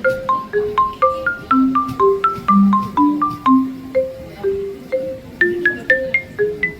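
Background music: a light, bouncy melody of marimba-like mallet notes, about three or four a second.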